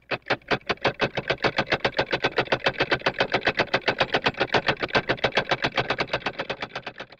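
A rapid, even chopping pulse, about eight beats a second, swelling at the start and fading near the end before it cuts off suddenly.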